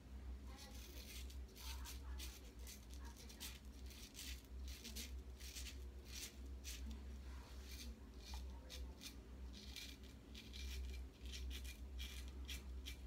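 George Butler 6/8 Sheffield straight razor scraping through lather and stubble on the upper lip in many short, faint strokes, over a steady low hum.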